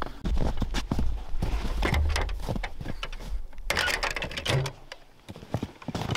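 Footsteps crunching in snow and scattered knocks from handling a metal ammo can on wooden skids, with a louder crunch about four seconds in. A low wind rumble on the microphone fades out near the end.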